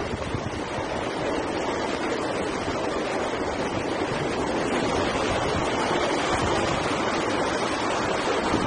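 Strong storm wind and surf blending into one steady rushing noise, with gusts buffeting the microphone in irregular low thumps.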